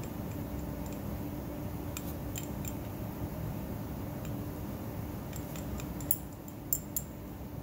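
Glass stirring rod tapping and scraping against the inside of a glass round-bottom flask as it breaks up clumps of solidified trimeristin in acetone: scattered light clinks, more frequent and sharper in the last couple of seconds. A steady low hum runs underneath.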